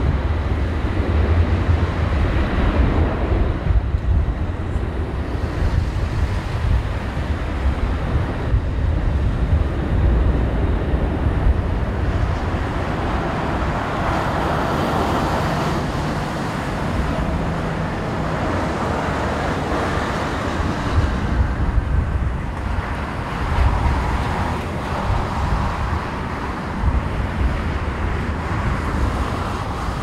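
A four-engine Boeing 747-400 freighter's jet engines at takeoff power through the takeoff roll and climb-out, the roar swelling in the middle as the jet passes and lifts off. Gusty wind buffets the microphone as a constant low rumble.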